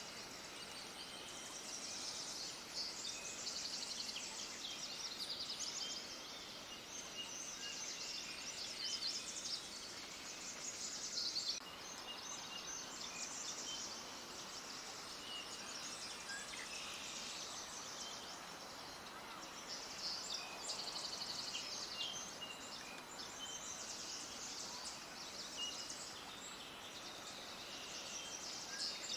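Many small songbirds chirping and twittering at once: a dense, continuous chorus of quick high-pitched chirps and trills over a faint hiss.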